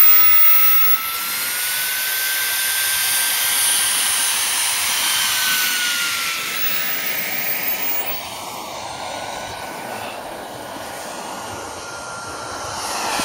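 Wren 54 model gas turbine running with a steady high whine over a rushing hiss. Its pitch rises a little and falls back, and the sound drops somewhat in level about two-thirds of the way through.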